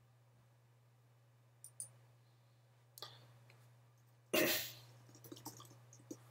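Faint clicks of a computer mouse and keyboard as a folder is created and named: a couple of soft clicks, another click, then a few light keystrokes near the end. A brief louder noise about four seconds in stands out above them, over a steady low hum.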